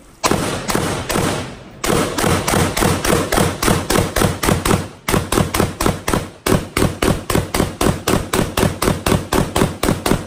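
Handgun fired rapidly at an outdoor range, a long string of sharp shots at about four a second, with brief pauses a few times between strings.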